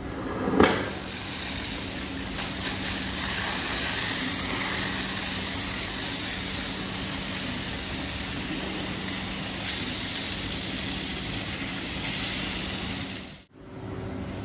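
Rug-cleaning machine running with a steady hiss over a low motor hum. A single sharp knock sounds just over half a second in, and the sound cuts off abruptly near the end.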